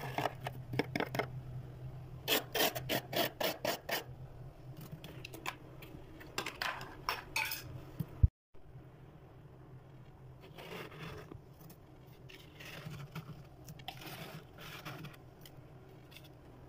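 Thick freezer frost being scraped and rubbed off by hand: quick rasping strokes, loudest in the first few seconds. A sharp click and a brief gap come just past the middle, then softer scraping.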